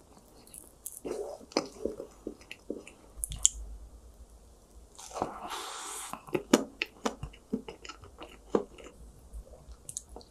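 Close-miked chewing of chocolate-cookie ice cream cake and an ice cream sandwich: wet mouth smacks and clicks with soft crunches of cookie. About five seconds in there is a longer, louder crunching bite.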